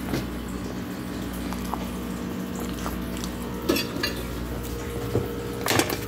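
Metal forks clinking and scraping against a foil-covered pizza pan, a few scattered sharp clinks with the loudest near the end, over a steady background hum.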